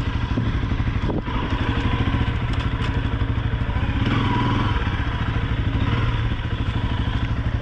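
Honda CRF 250L's single-cylinder engine running at a steady, evenly pulsing beat, with a few short knocks and clatters over it.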